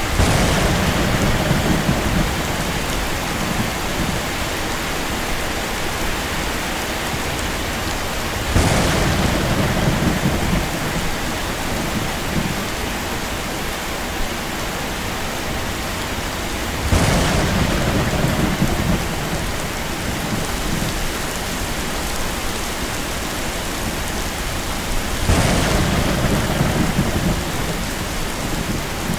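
Steady heavy rain with four thunderclaps at even spacing, about eight seconds apart. Each starts sharply and rumbles low for a couple of seconds.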